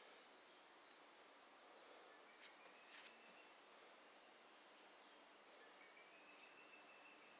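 Near silence: quiet room tone with a faint steady high-pitched tone, a few faint rising whistles, and two soft clicks about two and a half and three seconds in.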